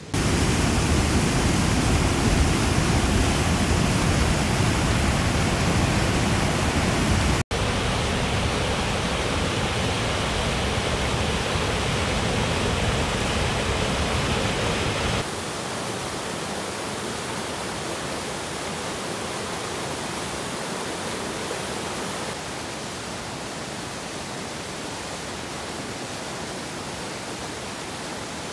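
High water rushing over a weir cascade in a steady, loud rush of water. The level drops noticeably about halfway through and again near the end.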